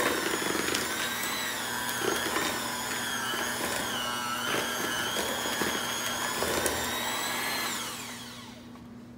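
Electric hand mixer running in banana bread batter: a steady motor whine that wavers a little in pitch, with occasional light ticks. Near the end the motor is switched off and its whine slides down and dies away.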